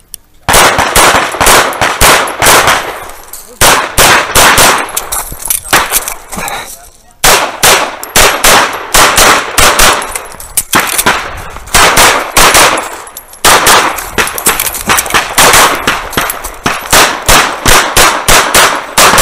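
Tanfoglio Stock 2 pistol fired in fast strings of loud shots, several a second, in about four runs broken by short pauses of about a second.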